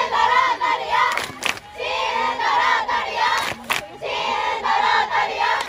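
A group of young women chanting in unison from the team bench: three long shouted calls, each about a second and a half, with short gaps and a few sharp cracks between them.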